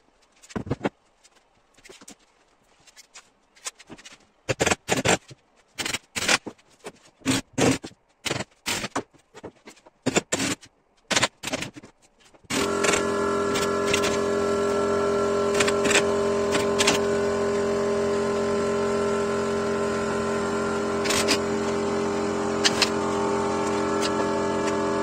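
Irregular knocks and clatter of workshop handling. About halfway through, an electric motor starts and runs with a steady pitched hum, with a couple of sharp clicks over it.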